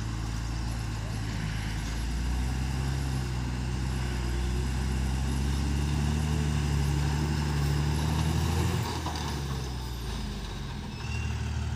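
Tata tipper truck's diesel engine working hard as the truck backs up and raises its dump body: engine speed rises about two seconds in, holds high, then drops back near nine seconds in.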